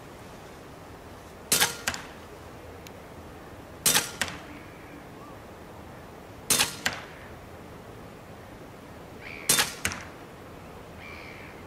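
Huben K1 6.35 mm PCP semi-automatic air rifle firing four shots about two and a half seconds apart. Each shot is a sharp crack followed within a fraction of a second by one or two smaller clicks.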